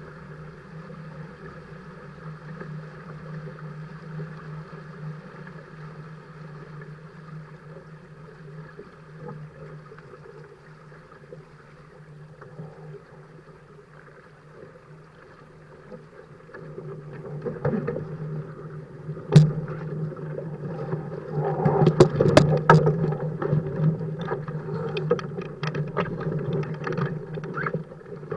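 A sailing catamaran under way: a steady low hum with water rushing past, growing louder about two-thirds of the way through, with sharp knocks and splashes near the end.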